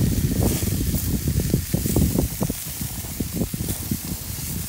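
Pork chops sizzling on a gas grill's hot grates, a steady hiss. Wind buffeting the microphone adds loud, irregular low rumbling throughout.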